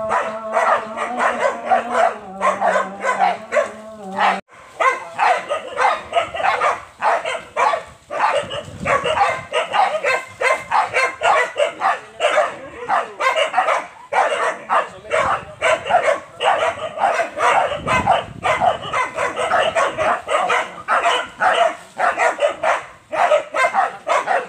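Hunting dogs barking and yapping rapidly without a break, several barks a second, from about four seconds in.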